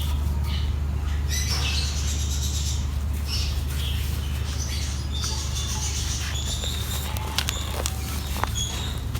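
Dry mud crumbling over a sheet: scattered crackles and small sharp crunches as the lumps break and fall. A steady low hum runs underneath.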